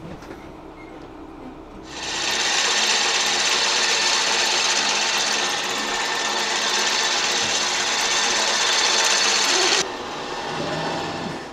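Sailboat winch ratcheting rapidly as a line is hauled in: a fast, dense rattle that starts about two seconds in and cuts off abruptly near the end.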